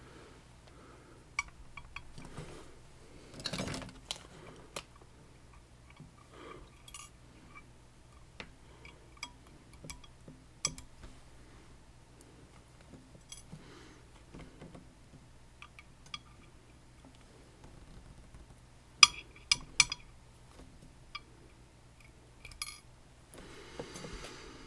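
Small metal lock parts (wafers and pins from a disassembled lock) clicking and clinking as they are picked up and set down on a parts tray. A few sharper clinks come about three-quarters of the way through, over a faint steady low hum.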